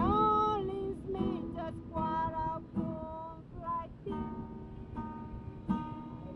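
A woman singing, with dry vocals, to her own strummed steel-string acoustic guitar. The voice drops out for about a second and a half past the middle while the guitar chord rings on, then comes back near the end.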